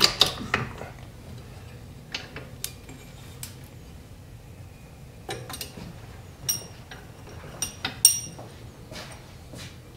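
Metal tools and parts being handled: a quick run of sharp clicks at the start, then scattered clinks and taps, several with a bright metallic ring, the sharpest about eight seconds in.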